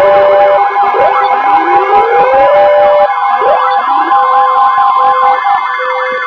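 Emergency vehicle sirens sounding over one another. One wails in slow rising sweeps while another yelps in fast up-and-down warbles, over steady tones, easing off near the end.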